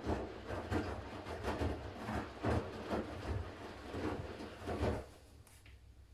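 Siemens iQ500 front-loading washing machine's drum turning wet laundry on its delicates/silk programme, a run of irregular swishing thumps that stops about five seconds in as the drum pauses.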